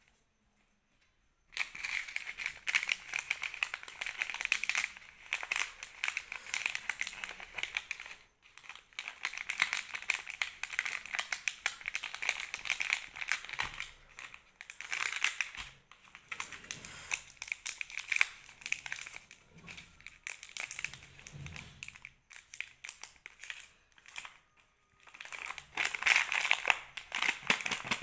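Plastic candy wrappers crinkled and squeezed in the hands, among them a Lotte Jellies lollipop wrapper and a mini Oreo bag, in long runs of crackling with short pauses between. It starts about a second and a half in.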